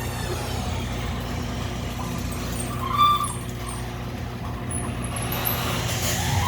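Legacy garage door opener motor running with a steady hum as the door travels, cutting out near the end. A brief high chirp sounds about three seconds in.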